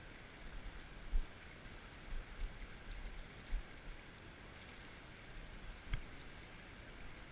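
Steady rush of flowing river water, with a few soft knocks on the microphone.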